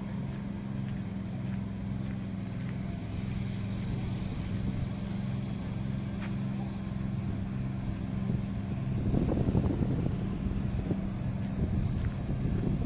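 A motor running with a steady low hum that throbs regularly, getting louder and noisier about nine seconds in.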